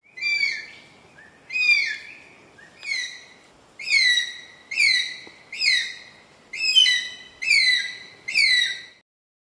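Philippine eagle calling: a series of nine short, high whistled calls, each sliding down in pitch, about one a second.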